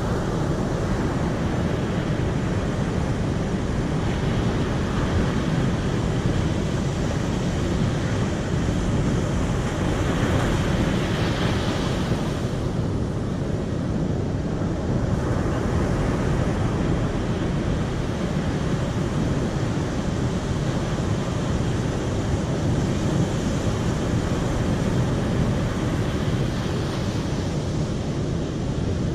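Steady rushing of flowing water, a dense even roar with a brief brighter swell a little before the middle.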